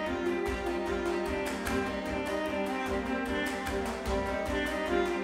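Background music with held tones over a steady beat.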